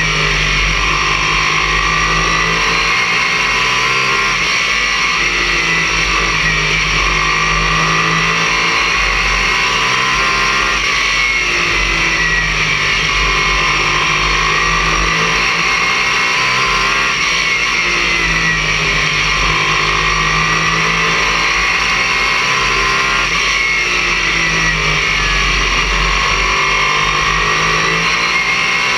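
Race car engine heard from inside the cockpit, running hard at a loud, steady level, its pitch rising and falling in a repeating cycle about every six seconds as the car lifts for each turn and accelerates down the straights.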